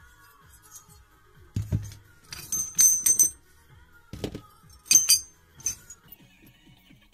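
Dismantled breaker parts of metal knocking and clinking as they are handled and set into a steel wire basket. A dull knock comes first, then a quick run of bright, ringing clinks, another knock and a sharp clink.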